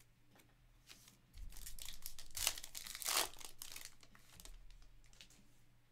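Foil trading-card pack crinkling and tearing open by hand, loudest about two to three seconds in, then fading to softer rustling.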